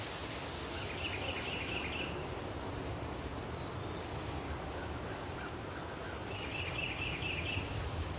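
Steady background noise with two short runs of high, quick chirps, each about a second long: one about a second in and another about six and a half seconds in.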